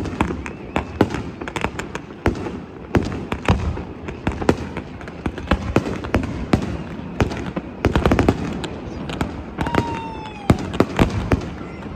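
Fireworks display: a rapid, irregular run of bangs and crackling shell bursts, densest about eight seconds in. A short falling whistle sounds near the end.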